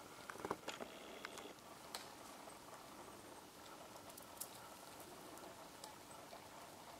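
Japanese macaque feeding on bark in a leafless tree: faint, scattered snaps and clicks of twigs and bark being bitten and broken, loudest in a quick cluster about half a second in.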